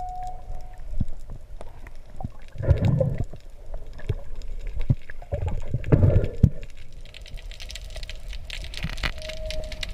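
Water movement heard underwater through a camera housing during a freediver's descent: a muffled low rumble with two stronger surges, about three and six seconds in, and scattered faint clicks.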